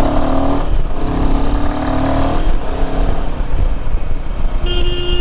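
Royal Enfield Himalayan 450's single-cylinder engine pulling away, its pitch rising in two pulls with a short break about a second in, over low wind rumble. Near the end a vehicle horn sounds with a steady tone.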